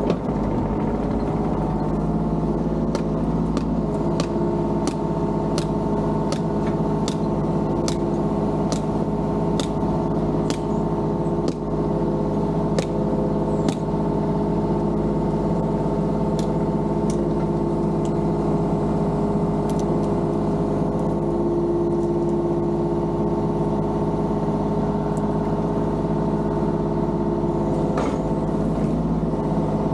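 An engine runs at a steady, unchanging speed throughout. Over it come sharp ticks about every 0.6 s for several seconds, then a few scattered ones later.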